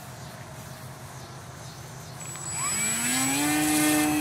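Brushless outrunner motor (Turnigy C2830, 1100 kV) with a 9x5 propeller spinning up on an electric foam RC plane. About two and a half seconds in, a whine rises in pitch and then holds steady as the motor reaches launch throttle, with a thin high tone over it.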